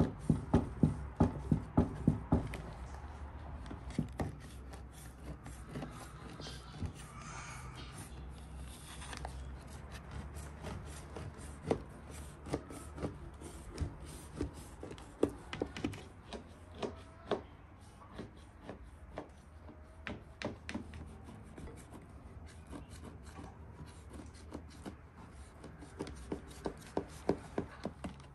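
Knife cutting through layered hazelnut baklava dough in a large metal tray, the blade ticking and scraping against the tray bottom. Quick runs of ticks come at the start and near the end, with scattered single ticks between.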